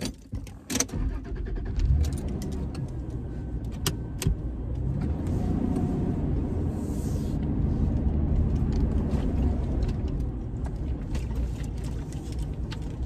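A car driving, its engine and road noise a steady low sound that builds up over the first two seconds, after a few sharp clicks and knocks at the start.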